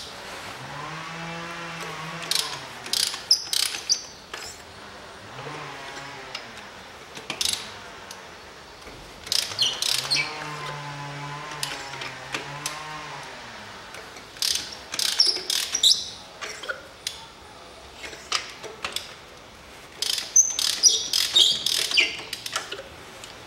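Ratchet wrench with a long extension and spark-plug socket clicking in clusters as the spark plugs are loosened and taken out of the Toyota Camry's 2.5-litre engine, with light metallic clinks of the socket and plugs. Three times a low pitched drawn-out creak rises and falls for a second or two.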